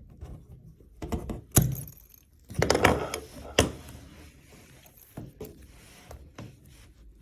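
Wire snippers cutting wooden toothpicks off flush at the base of a screw hole: a few sharp snaps, the clearest about one and a half and three and a half seconds in, with small clicks and handling rustle between them.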